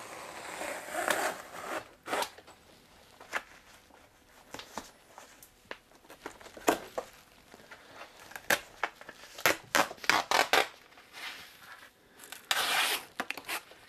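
Upholstery being pried and pulled off a chair's wooden frame with a hand tool: scattered sharp clicks and snaps as the staples give, with a cluster of them about two thirds through. Near the end the fabric tears away for about a second.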